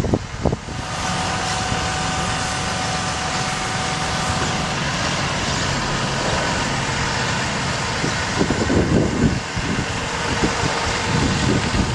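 Bucket truck running steadily while its hydraulic aerial boom is lowered into the stowed position: an even mechanical noise with a faint steady whine in it. A few uneven low rumbles come near the end.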